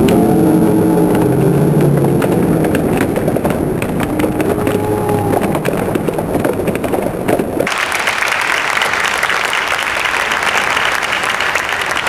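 Arena crowd shouting and cheering, then a sudden change near eight seconds in to steady applause.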